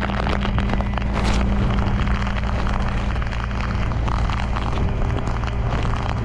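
Tow truck engine idling steadily, with rain pattering and hissing over it.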